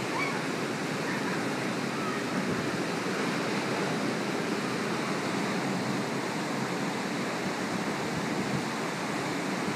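Heavy hurricane surf breaking along the beach, mixed with wind, as a steady rushing noise.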